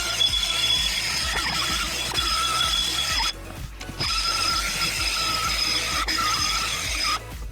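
Die grinder with a rotary file bit cutting metal on a go-kart wheel hub: two runs of a high whine with a grinding rasp, each about three seconds long, with a short break between them.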